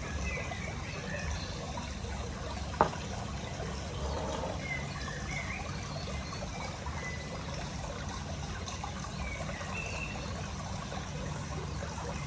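Steady background hiss over a low rumble, with a few faint short high chirps and one sharp click about three seconds in.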